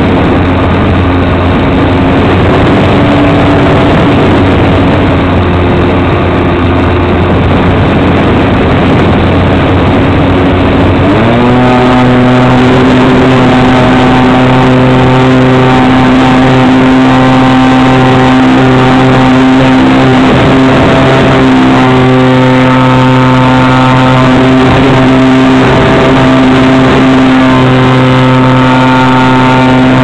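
Model aeroplane's motor and propeller running steadily, heard close up from the wing, over wind noise. About eleven seconds in, the motor speeds up and its pitch rises, then holds at the higher speed.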